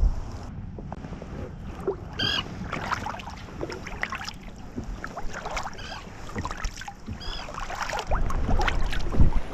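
Wooden Greenland paddle stroking through calm water: the blades dip in and drip and splash on each side as the sea kayak glides along. A few short, high calls sound about two seconds in and again around six and seven seconds, and a low rumble of wind on the microphone comes near the end.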